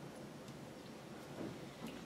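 Quiet room tone with a couple of faint, short clicks.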